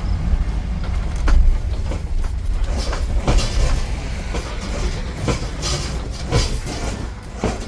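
A rented RV on the move: a steady low rumble of engine and road, with irregular rattles and clunks.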